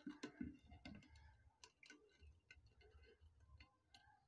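Faint clicks and scrapes of a knife blade working around the hardened flour-dough seal on an aluminium pot lid, cutting the seal open so the lid can come off.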